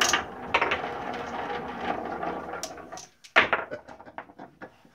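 Marbles rolling down a wooden spiral track with a steady rumble that stops about three seconds in. Then a loud clack and a quick run of clicks as the marbles are gathered up by hand on the wooden base.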